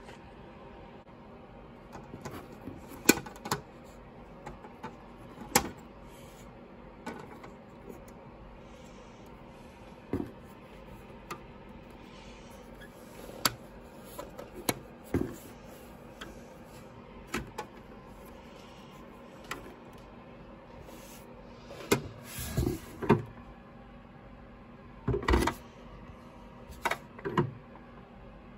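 Hard plastic clicks and knocks from a Bruder UPS toy delivery van being handled, its doors and parts worked by hand. The knocks are scattered, with louder clusters a little past the two-thirds mark and again near the end.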